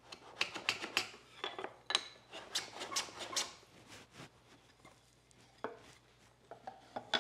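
A hand plane taking a few short passes on wood to fine-tune the fit of a cleat: quick scraping strokes with sharp clicks and knocks through the first four seconds or so, then only a few light taps.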